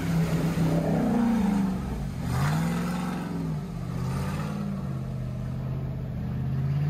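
Hummer H2's V8 engine under load in deep mud and water, the revs rising and falling several times as the throttle is worked. A rush of water and mud splashing joins it about two to three seconds in.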